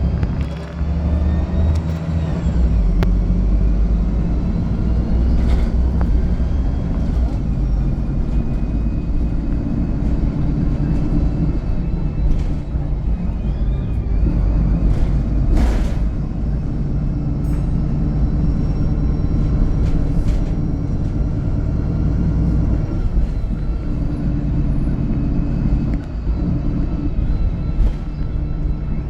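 VDL SB200 Wright Pulsar 2 single-deck bus running on the move, its diesel engine droning steadily and rising and falling a little in pitch, with a faint high whine above it. A few sharp clicks or rattles come through, the loudest about halfway.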